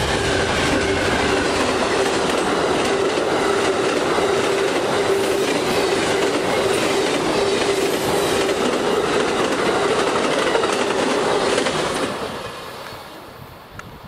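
Amtrak passenger train, led by a GE Genesis diesel locomotive, passing close at speed: a loud steady rush of wheels on rail with rapid clicking over the rail joints and a steady tone underneath. It fades away after about twelve seconds as the train recedes.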